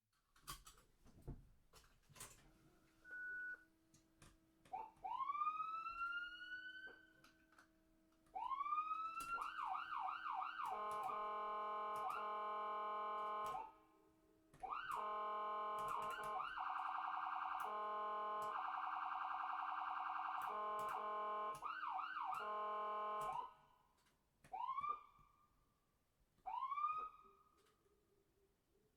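Electronic ambulance siren run through its tones. It starts with a few clicks, then gives rising whoops and a fast yelping warble, holds a rapidly alternating tone for several seconds at a time, and ends with short rising whoops.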